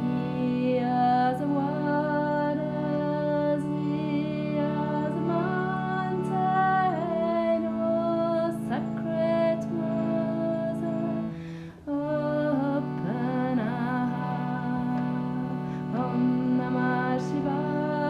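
A woman singing a slow mantra over a steady sustained drone, her melody gliding between held notes; the sound breaks off for a moment about two-thirds through, then resumes.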